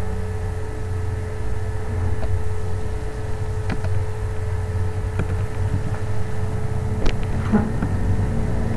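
Steady low electrical hum with a constant mid-pitched tone, and a handful of short clicks from computer keyboard keys as text is typed.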